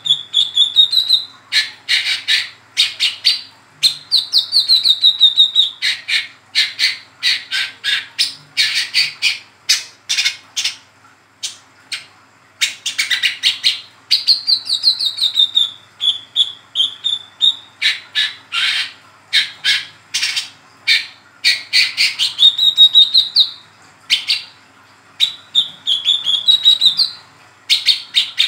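Juvenile brown-throated sunbird (wiceh trotol, kolibri kelapa) calling in its fast ngeriwik chatter: bursts of rapid sharp chips broken by short warbled trills, phrase after phrase with brief pauses between.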